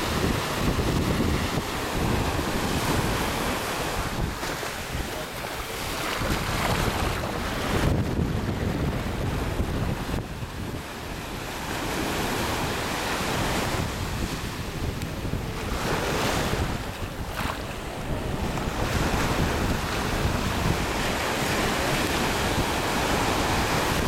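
Sea surf washing in, a steady rushing noise that swells and eases every few seconds, with wind buffeting the microphone in a low rumble.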